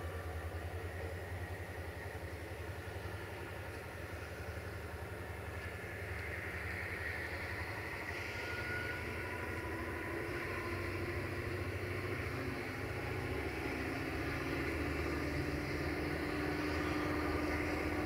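Romanian CFR class 65 (LDE2100) diesel-electric locomotive's Sulzer diesel engine running with a steady low throb, growing gradually louder as the locomotive approaches.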